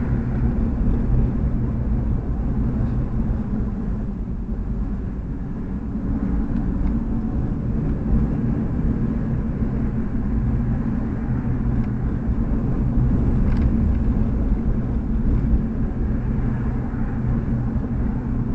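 Car driving at about 55–60 km/h, heard from inside the cabin through a dash cam: a steady low rumble of engine and road noise.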